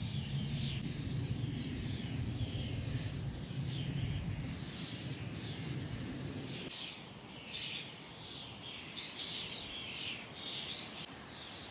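Many small birds chirping and trilling together in quick, overlapping calls. A low rumbling noise runs underneath through the first half and cuts off suddenly a little past halfway, leaving only the birdsong.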